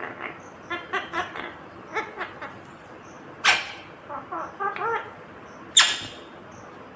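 Ringneck parakeet chattering in a run of short pitched calls and mumbled, talk-like sounds, broken by two sharp, loud squawks, one about halfway through and one near the end.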